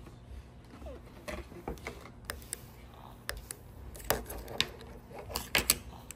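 Light clicks and taps of a plastic light-up flower pendant and its beaded necklace being handled and turned over on a table, with the sharpest clicks in the second half.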